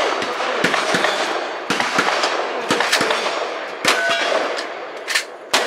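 A string of gunshots roughly a second apart, fired at steel targets, with the metallic clang of the steel plates ringing after the hits.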